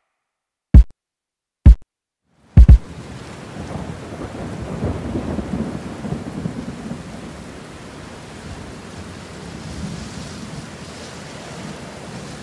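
Three last deep drum-machine kicks about a second apart, then a thunderstorm: steady heavy rain with thunder rumbling, swelling twice.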